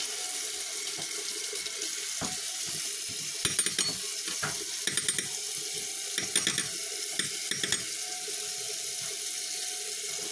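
Water running steadily from a tap into a sink while deadbolt lock parts are rinsed, with several light metallic clicks and clinks in the middle.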